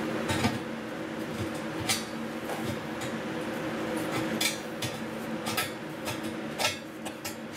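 Newly turned steel rake pin being worked by hand into the end of a rectangular steel tube: six or so sharp, irregular metal-on-metal clinks over a steady hum.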